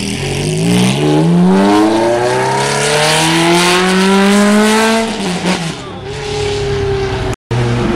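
Ferrari F430 V8 with a loud exhaust accelerating hard away, its pitch climbing steadily for about five seconds, then dropping and running lower as the car moves off. The sound cuts out for a moment near the end.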